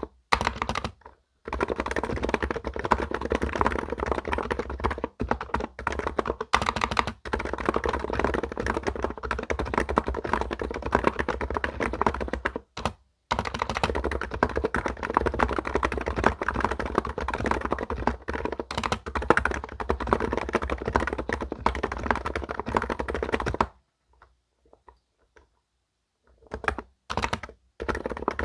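Fast, continuous typing on an enthusiast keyboard: a dense run of key strokes with a brief pause about halfway, then a break of a couple of seconds near the end before the typing starts again.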